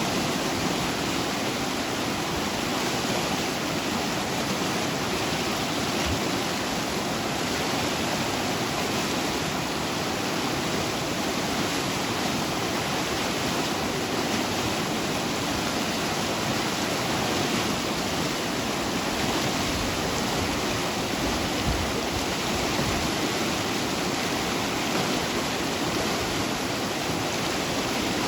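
Rushing water flowing steadily: a dense, even hiss with no breaks or changes.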